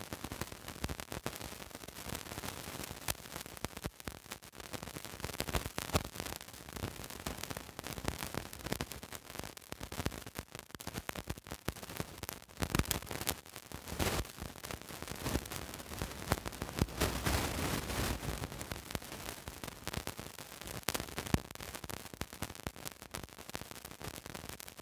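Low crackling static hiss with many irregular faint clicks, briefly a little louder about two-thirds of the way through.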